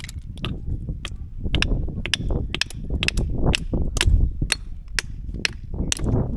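Sharp, hard knocks of a hand tool striking spider conch shells, about two a second in an uneven rhythm, as the shells are broken open to get at the meat.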